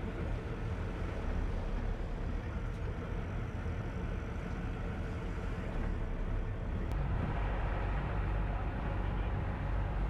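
Steady low rumble of a sportfishing boat's engines under way, mixed with wind and rushing sea water, with a faint click about seven seconds in.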